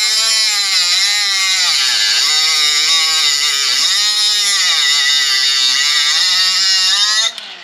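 Electric power tool cutting a notch in an aluminum bracket. The motor's whine dips and recovers as it bites into the metal, over a loud high-pitched grinding hiss. It runs steadily and cuts off abruptly near the end.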